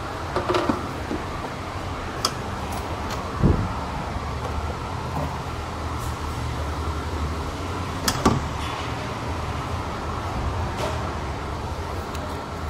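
A steady low mechanical hum with a few sharp clicks and knocks from parts being handled in the engine bay. The loudest knocks come about three and a half seconds in and about eight seconds in.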